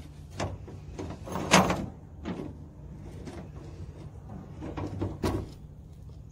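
A padlock being unlocked with a key and knocking against the steel locking bar and hasp of a shipping container door: a handful of separate metallic clanks and rattles, the loudest about a second and a half in.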